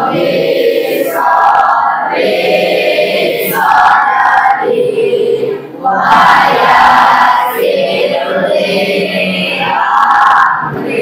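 A class of schoolchildren reciting a prayer aloud together in unison, phrase after phrase with short pauses between.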